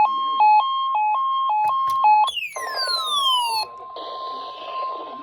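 Weather alert radios going off for the NOAA weekly test. A two-pitch electronic alert beeps back and forth about three times a second. About two seconds in it gives way to a falling electronic sweep over a steady single-pitch tone, the weather radio warning alarm tone. Radio hiss comes up about four seconds in.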